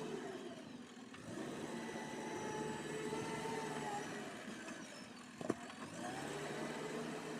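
JCB 3DX backhoe loader's diesel engine revving up and easing off in slow swells, as when the machine is worked under load in mud. One sharp knock about five and a half seconds in.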